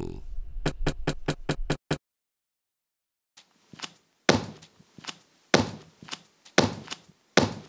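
Cartoon sound effects: a snore trails off in the first two seconds over a quick run of sharp ticks. After a short silence, a rubber stamp thumps down on paper four times, about once a second, each thump ringing briefly.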